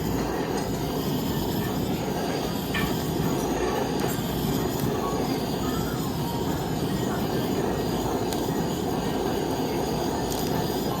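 Steady sizzling of okonomiyaki cooking on a hot teppan griddle.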